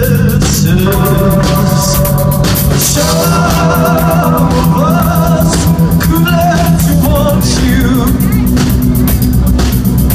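Live rock band playing loud: a singer holding a wavering melody over electric guitars and a drum kit with cymbal strikes.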